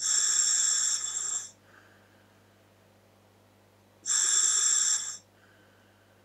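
Scuba regulator on a Dräger full-face mask hissing twice as air is drawn through it on inhalation, each breath about a second and a half long, about four seconds apart. Each is followed by a shorter, softer sound of the breath out.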